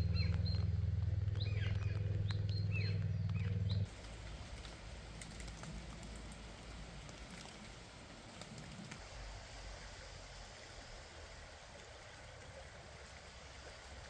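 Small birds chirping over a steady low hum for about the first four seconds, then an abrupt drop to the quiet, even rush of a shallow river running over stones.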